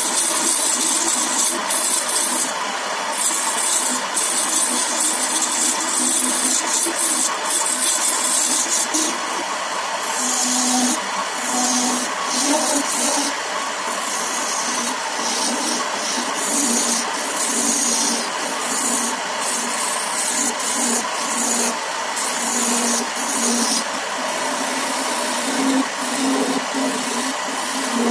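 Wood lathe running while a hand-held turning chisel cuts the spinning wooden spindle. The cut gives a hissing, scraping sound that starts and stops with each pass of the tool, over the lathe's steady hum.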